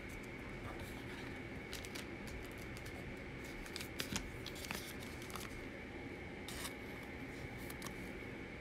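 Faint, scattered clicks and light scrapes of trading cards being handled and set down.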